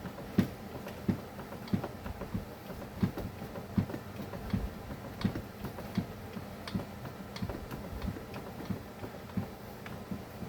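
Ratchet wrench clicking in an irregular run of sharp ticks, about two to three a second, as bolts are backed out of an Echo chainsaw.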